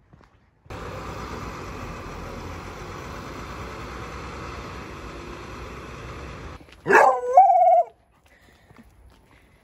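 A dog gives one short howling yelp, about a second long, roughly seven seconds in: it shoots up sharply, then bends down and settles into a lower, held note before breaking off. Before it there is a steady outdoor noise of the street.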